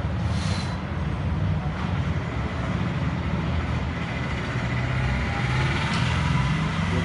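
Steady low engine rumble, like a motor vehicle running, with a brief hiss about half a second in.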